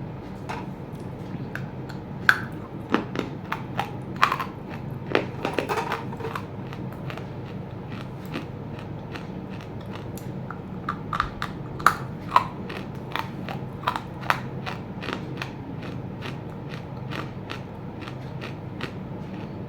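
Chunks of roasted clay being bitten and chewed close to the microphone: sharp, crisp crunches in two clusters, about two to six seconds in and again around eleven to fifteen seconds, with lighter crackles between, over a steady low hum.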